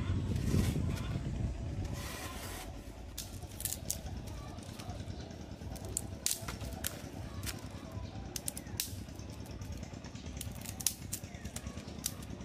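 Small fire of dry twigs crackling, with irregular sharp snaps and pops over a low hiss. In the first moments, a few dull thuds of soil being dug.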